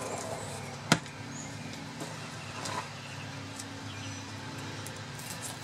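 A single sharp knock on the wooden fish-cleaning board about a second in, followed by a few fainter knocks and handling sounds, over a steady low hum.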